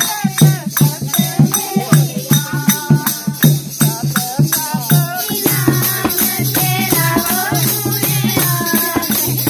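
Group of women singing a devotional folk song, clapping in time at about two claps a second. About halfway the claps fade and the singing continues over a steadier, more even accompaniment.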